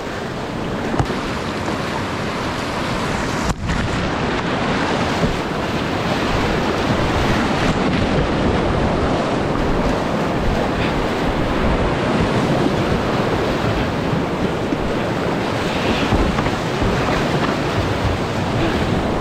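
Whitewater rapids rushing and splashing steadily around a kayak as it runs through a rapid, heard close up from the boat itself, with spray and wind hitting the microphone.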